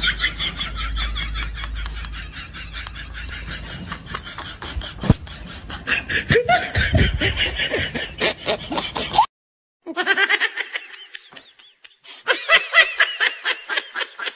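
Laughter in quick, rhythmic 'ha-ha' pulses. It breaks off abruptly just after nine seconds in, and a second bout of laughter starts about half a second later.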